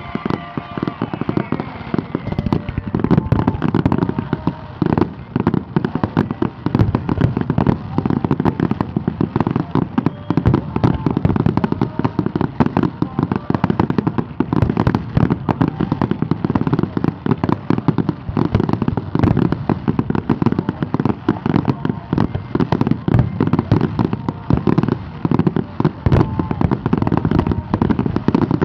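Aerial fireworks display: a dense, unbroken barrage of shell bursts, many bangs and crackles a second with no let-up.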